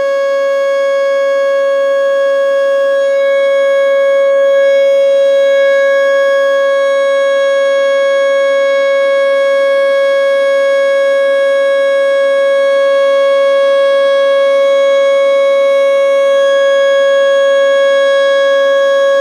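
American Signal T-121 mechanical outdoor warning siren sounding the steady tone of its 3-minute alert signal during a test. One loud held tone with overtones, swelling slightly about four to six seconds in.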